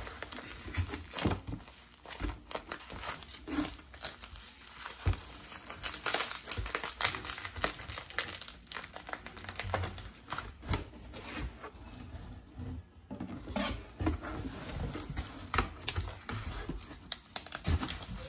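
Plastic bubble wrap crinkling and crackling as it is handled and pulled away from a wrapped glass, with irregular tearing sounds.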